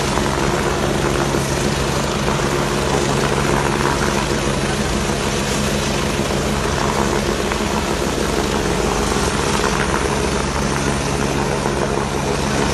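Helicopter hovering low overhead: a steady, unbroken rotor and turbine noise with a constant low hum.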